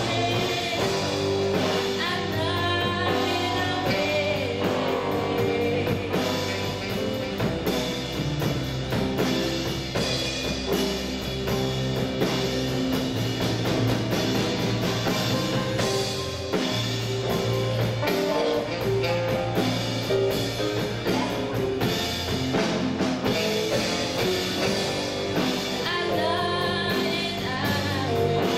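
Live blues band playing, with electric guitars, bass, drum kit and saxophone, and a woman singing over them.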